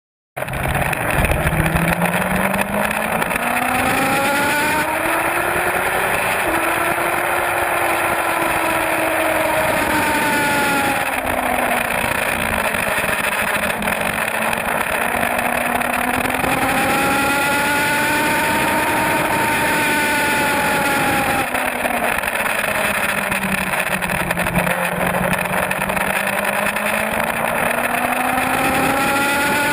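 Suzuki GSX-R750 sport bike's inline-four engine at speed, heard from its onboard camera under heavy wind rush. The engine note climbs and falls slowly over several seconds at a time as the rider accelerates and rolls off the throttle.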